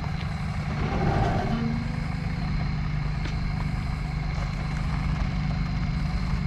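Truck engine running steadily at low speed, a low drone.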